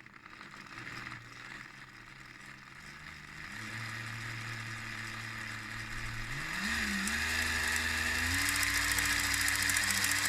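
Lego 12 V train motor and gears of the 726 Western locomotive starting up on a test bench, a whirring run that steps up in pitch and loudness about three times as the speed is raised.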